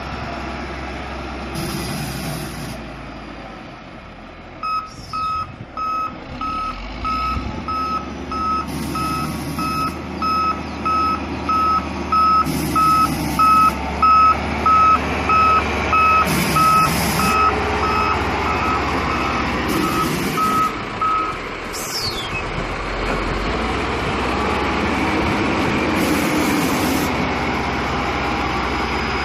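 Caterpillar 140K motor grader's diesel engine running as the machine reverses, its backup alarm beeping at an even pace from about five seconds in until about two-thirds of the way through.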